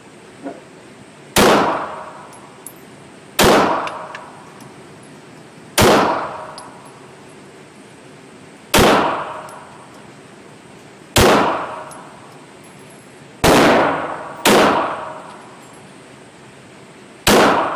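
Handgun fired in single, spaced shots in an indoor shooting range, eight in all, mostly two to three seconds apart with two coming about a second apart near the end. Each shot is loud and rings on briefly off the range walls.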